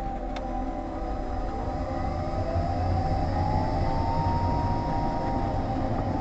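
Honda Fit GR3 hybrid on the move, its electric drive whining in several tones that slide down and then rise to a steady pitch, over a low road and drivetrain rumble.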